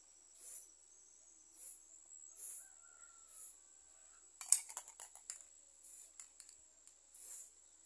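Aerosol spray paint can hissing in short bursts, roughly one a second, as white paint is sprayed onto a metal shelf frame. A quick run of clicks and light knocks comes about halfway through.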